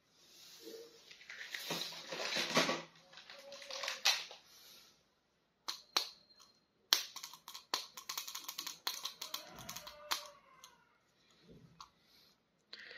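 Plastic toy packaging rustling and crinkling as an action figure is unpacked and handled, followed a few seconds later by a run of rapid clicks and crackles.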